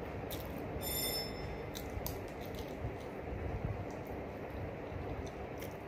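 Eating sounds: quiet chewing and a few soft clicks of fingers working rice on a plate, over a steady low rumbling background, with a brief high tone about a second in.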